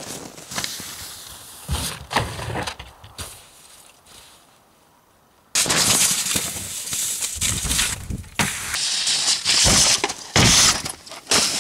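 A snowracer's skis scraping and hissing over packed snow, starting abruptly about halfway in, with several sharp thuds and knocks as the sled hits the snow ramp and box. Scattered knocks and a quiet moment come before it.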